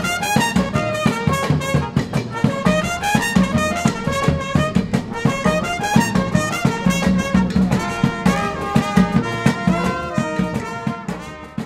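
Background music: an upbeat instrumental with a quick stepping melody over a steady beat, getting quieter near the end.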